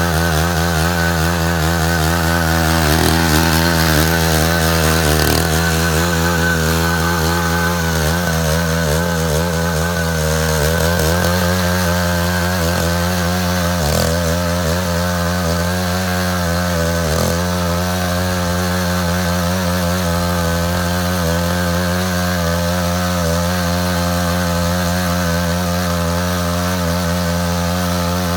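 Engine of a Matsuda walk-behind power tiller running steadily while cutting a ditch, its pitch dipping and wavering briefly a few times as it takes load.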